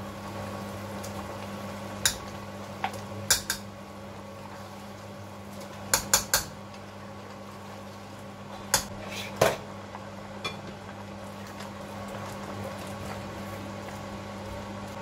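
A spoon knocking and scraping against an open tin can and a steel pot while palm nut cream concentrate is scooped out: about ten sharp clinks, some in quick clusters, spread irregularly, over a steady low hum.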